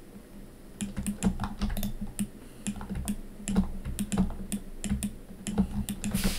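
Computer keyboard keys clicking irregularly as shortcuts are pressed, starting about a second in.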